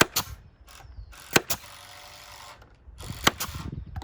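Pneumatic nail gun firing nails into cedar fence framing: a few sharp cracks, the loudest about a second and a half in and near the end, with a stretch of hiss between them.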